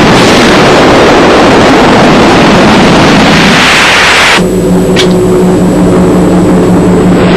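Loud rushing, jet-like roar of a sci-fi sound effect that grows brighter and then cuts off sharply about four seconds in. It gives way to a steady low electronic hum, with a single click a moment later.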